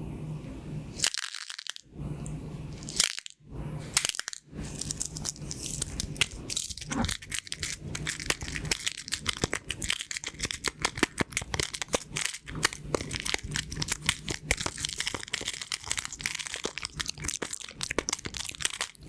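Pin art toy's pins clicking and rattling as they are pressed and slide in their holder: a dense run of fast clicks, broken by a few short silent gaps in the first four seconds.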